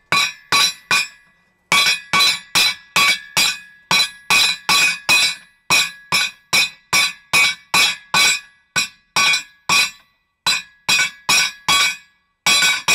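Hand hammer striking red-hot steel on an anvil in light, even blows, about three a second with a few short pauses. Each blow leaves a brief metallic ring. These are the light blows that set a forge weld at welding heat.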